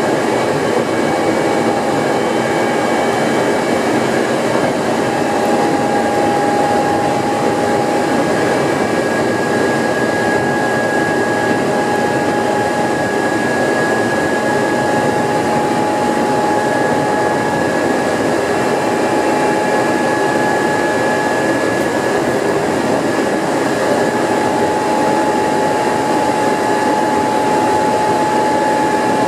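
Hankyu Kyoto Line electric train running steadily at speed, heard from the front of the train: a continuous rumble of wheels on the rails with a steady high whine over it.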